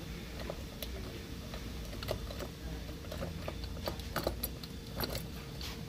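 Faint, irregular small metal clicks and ticks as an Allen key turns the long screws of a stainless-steel push-button plate, over a faint steady hum.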